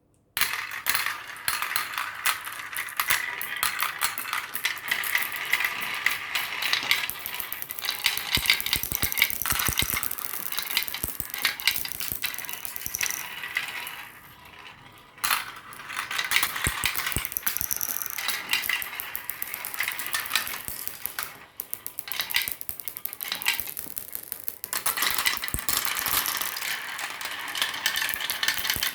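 Marbles rolling and clattering down a marble run: a dense, continuous stream of small clicks and rattles. The clatter thins out briefly about halfway through, then picks up again with a sharp click.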